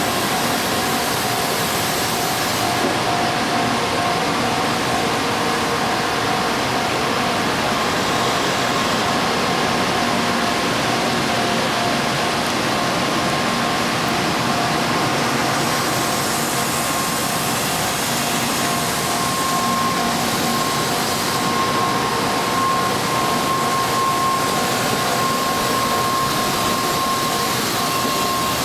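N700A Shinkansen train set rolling past, a steady running noise with steady humming tones underneath; a higher tone grows stronger about two-thirds of the way through.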